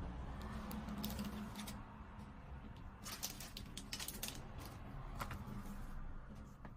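Packaging being handled and unwrapped: rustling with a run of sharp crinkling clicks about halfway through.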